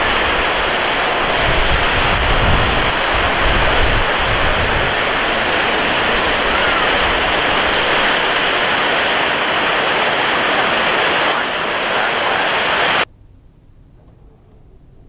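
Wind and surf on a beach: a steady rushing noise, with low gusts buffeting the microphone in the first few seconds. It cuts off suddenly near the end, leaving only a faint hiss.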